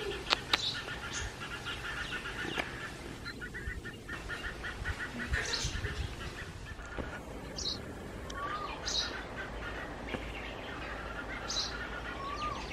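House sparrow fledglings begging to be fed: runs of rapid, repeated chirps, with several short, higher chirps over them.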